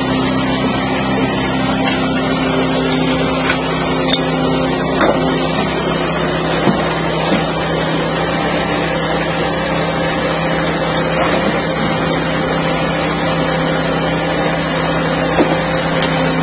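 Hydraulic power unit for a helical pier drive running with a steady drone. A few sharp metal clinks come from the pier shaft as an extension is bolted onto it.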